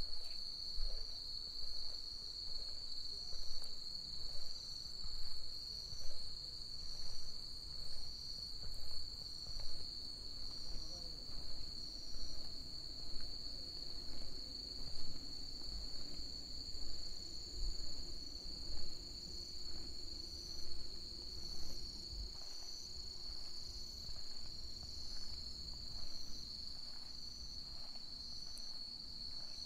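Evening insects calling: one steady high-pitched trill, with a second insect's shorter chirps repeating about once a second over it. Footsteps on a path, about one a second, stop a few seconds before the end.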